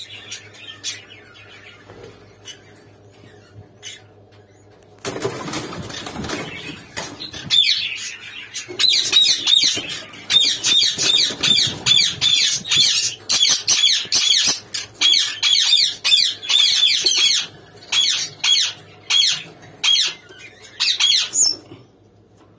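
Rubino eastern rosellas in an aviary: a sudden flurry of wing flapping, then a long run of short, sharp squawking calls, several a second, with a brief pause near the end.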